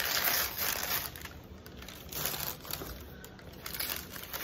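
Gift wrapping paper crinkling and rustling as it is handled and pulled from a cardboard box. The rustle is loudest for about the first second, then comes in a few shorter, fainter bursts.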